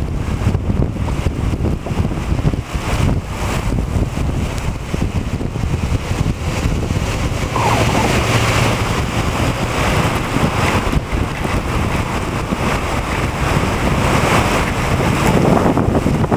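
Wind buffeting the microphone during a heavy rainstorm, with a steady rush of rain; the rain hiss grows louder about halfway through.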